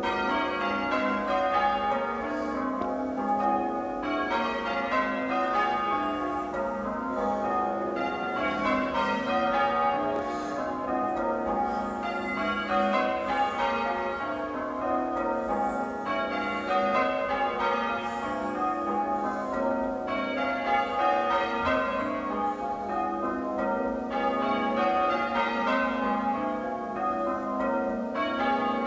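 Church tower bells being change-rung in a peal. There is a continuous stream of bell strikes in a regular rhythm, and the pattern recurs about every four seconds as the rows follow one another.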